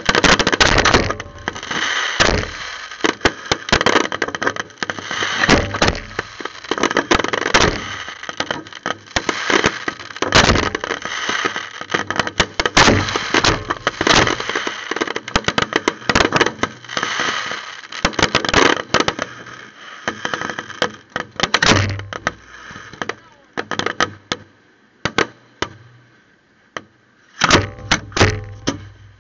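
Aerial fireworks bursting: a dense run of sharp reports and crackling for about twenty seconds, then thinning to scattered pops, with a fresh tight cluster of cracks near the end.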